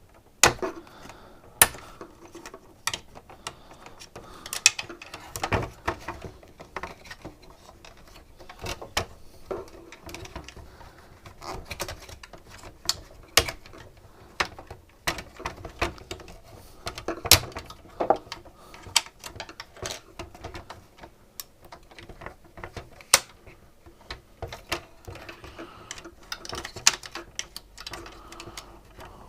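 Irregular clicks, knocks and rattles of hard plastic and metal parts being handled and pried apart while a SodaStream soda maker is disassembled.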